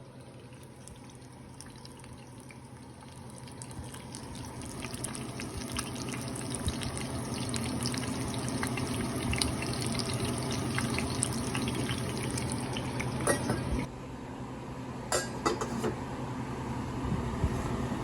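Running water with scattered small clicks and clatter, building up over the first few seconds, dropping off abruptly about fourteen seconds in and then picking up again.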